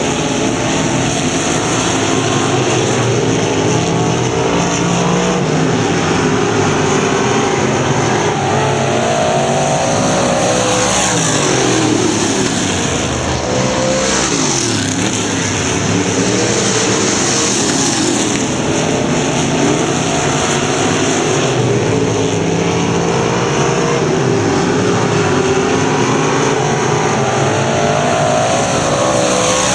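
Several dirt-track stock car engines running hard around the oval. Their pitch rises and falls repeatedly as the cars accelerate, lift for the turns and pass.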